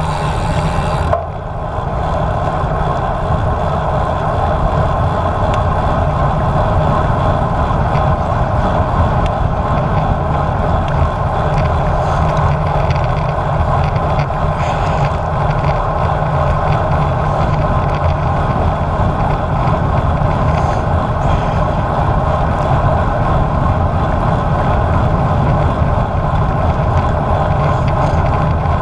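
Wind rushing over a bike-mounted GoPro's microphone while riding a road bike at speed, a steady loud rush with tyre and road noise underneath. The higher hiss thins about a second in.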